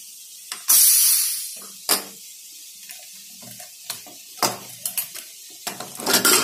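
A short, loud hiss of steam from a Prestige pressure cooker about a second in, then a series of metal clicks and clanks as the cooker's lid and handle are worked open.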